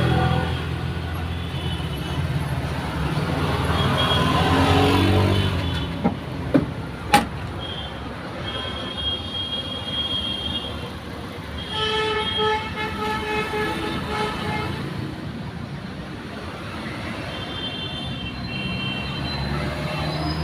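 Road traffic noise with vehicle horns sounding several times, the longest held for about two seconds near the middle, and a sharp click about seven seconds in.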